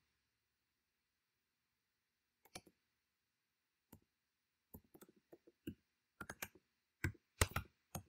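Computer keyboard keys being typed in irregular clicks. There are a few isolated keystrokes at first, then a quicker run of typing through the second half.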